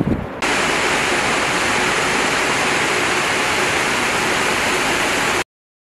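Steady rushing hiss of crushed stone and sand pouring in a falling curtain off crusher machinery, starting abruptly and cutting off suddenly shortly before the end. A brief low thump comes at the very start.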